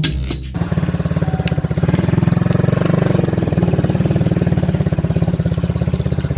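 Music cuts off about half a second in, giving way to a vehicle engine idling with a fast, even pulsing.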